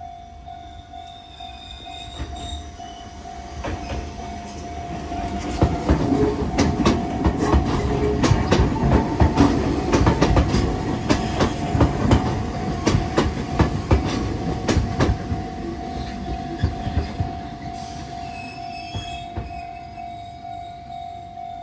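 An Enoden (Enoshima Electric Railway) train passing close over a level crossing. It builds up over the first few seconds, runs loud for about ten seconds as a rumble with rapid clattering wheel clicks, then fades, with brief high wheel squeals near the start and the end. A steady tone, the crossing's warning alarm, rings throughout.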